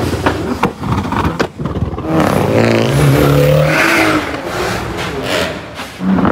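Performance car engine revving hard, its pitch climbing about two seconds in, with sharp crackling pops before and after the rev.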